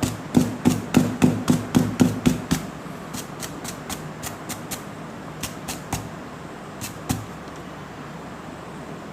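A quick run of sharp knocks, about four a second for two seconds, then lighter, more widely spaced taps, and two last knocks a few seconds later: hard tool parts being struck and tapped against a hard surface while hardened glue is cleaned off a router bit.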